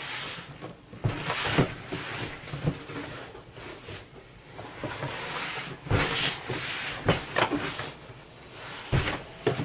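A large cardboard heater box being handled and turned over, with scraping and rustling of cardboard and several thumps and knocks as it is moved.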